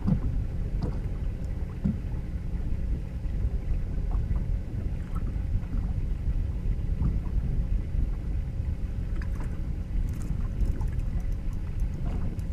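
Steady low rumble of wind and light chop around a fishing boat, with faint ticking near the end.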